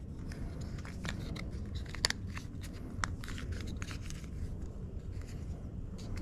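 Faint, scattered clicks and rustles of hands handling the small plastic parts of a steering-wheel control box and its housing.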